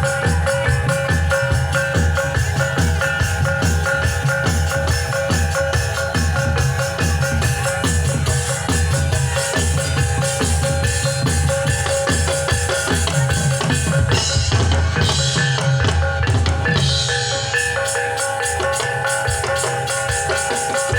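Jatilan dance accompaniment music: drums beating a fast, steady rhythm under ringing pitched metallophone tones. Near the end the low drumming thins out.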